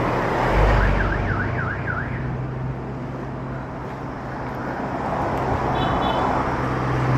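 Roadside traffic: a motor vehicle's engine running with road noise. About a second in, a high warbling tone rises and falls about five times in quick succession, like a car alarm.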